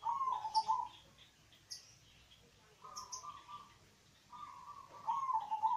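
Zebra dove (perkutut) cooing: three phrases of quick staccato notes, one at the start, a short one about three seconds in, and a longer one near the end. A few short high chirps sound over the coos.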